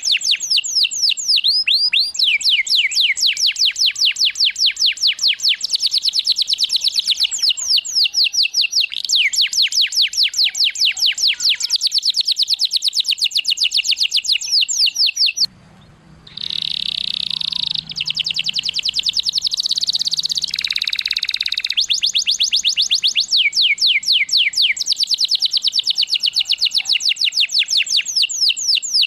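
Domestic canary singing: long rolls of rapid, repeated falling notes, broken by a short pause about halfway through, then a more varied phrase before the rapid rolls resume.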